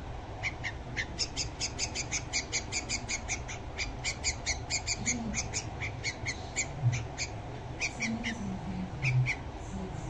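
Red-vented bulbul fledgling giving rapid, repeated high-pitched chirps, about four or five a second, with a short pause near the end: begging calls while it gapes for food.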